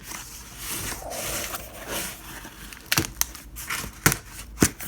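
Cardboard box packaging being handled and pulled open: rustling and scraping, then three sharp knocks or clicks near the end.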